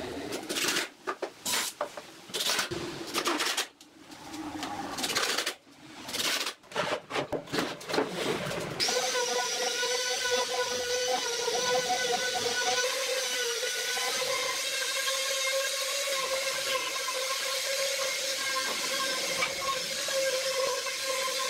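Irregular short bursts of workshop noise, then about nine seconds in an electric power tool starts and runs steadily with a constant whine.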